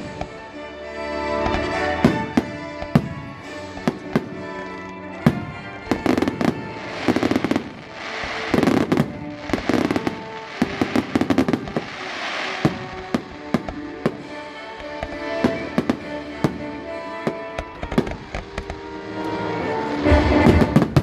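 Fireworks display: a rapid string of shell bursts and bangs, with dense crackling about 7 to 13 seconds in, over music with long held notes.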